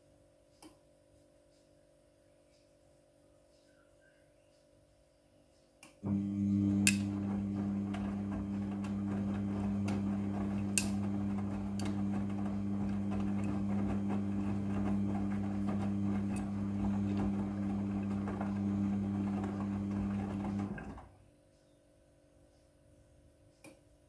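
Midea front-loading washing machine turning its drum in the wash cycle: about six seconds in, the motor starts with a steady hum and the rushing of the tumbling wet laundry, with a couple of sharp clicks. It stops abruptly about fifteen seconds later, and the drum rests with only a faint hum.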